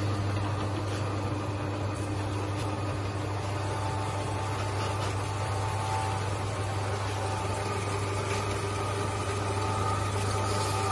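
Electric meat grinder running under load with a steady low motor hum, its screw pushing feed mash out through the plate as long pellet strands.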